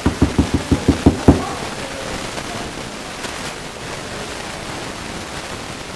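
A quick run of about eight low thumps, roughly six a second, over the first second and a half, followed by a steady hiss.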